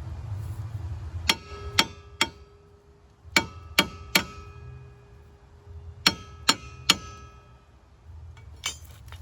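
Hammer blows on a metal wheel hub, three groups of three sharp strikes each ringing on briefly, with a couple of lighter knocks near the end: knocking the rear hub loose from the drive axle.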